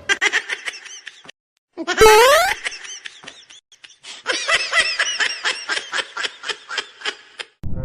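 Rapid bursts of laughter, with a short, loud rising squeal about two seconds in.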